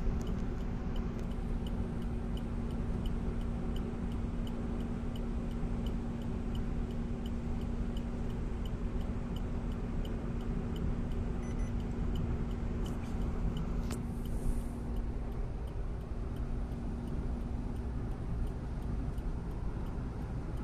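Steady road noise and engine hum of a car at cruising speed, heard from inside the cabin, with a light, regular ticking about two or three times a second through much of it.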